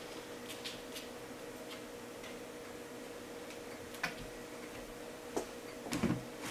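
A dog's claws clicking now and then on a hardwood floor, over a faint steady hum. A few louder, duller bumps come near the end.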